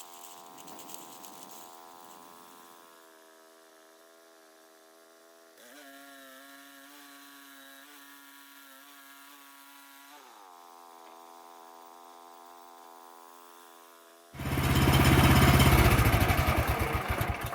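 Portable bandsaw sawmill's engine running steadily. Its pitch rises about five seconds in and falls back about ten seconds in. It turns much louder for the last three seconds.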